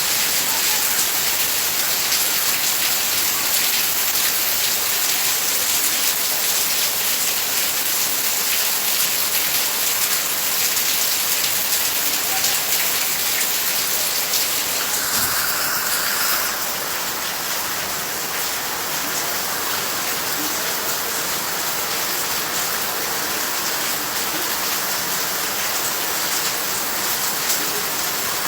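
Heavy rain falling steadily, a dense even hiss that eases slightly a little past halfway.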